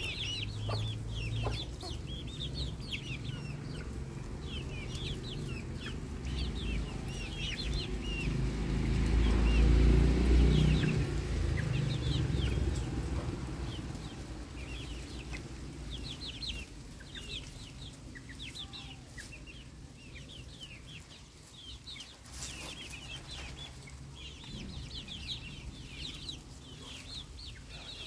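Backyard chickens clucking, with young chicks giving many short, high cheeps throughout. A low rumble swells and fades around the middle and is the loudest part.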